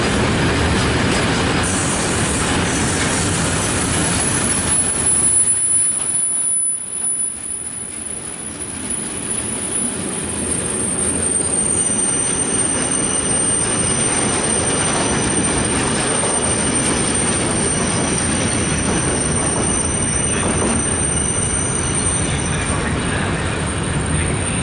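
Freight train passing slowly through a station, its wheels rumbling on the rails with thin, high-pitched wheel squeal. The sound dips briefly about six seconds in.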